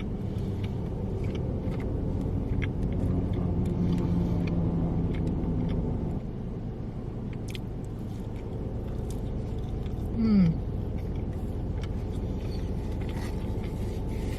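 A person chewing the last bites of a wings, fries and cheese-bites meal close to the microphone, with scattered small crunching clicks over a steady low rumble. A short falling hum sounds about ten seconds in.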